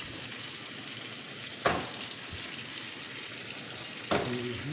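Food frying in hot oil in a cooking pan, a steady sizzle, with a sharp clank of a utensil on the pan about one and a half seconds in and another near the end.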